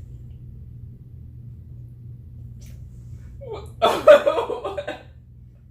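About three and a half seconds in, a person lets out one loud burst from the throat lasting about a second, over a low steady hum.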